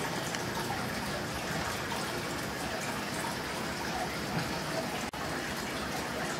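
Steady running, splashing water in an aquarium, as from a filter outflow pouring into the tank. The sound cuts out for an instant just after five seconds in.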